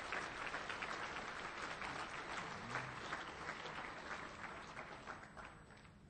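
Audience applauding, the clapping thinning out and fading away over the last second or two.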